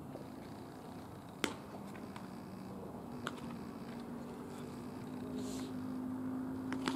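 Quiet outdoor background with a few isolated sharp knocks, the loudest about a second and a half in, and a faint steady hum in the second half.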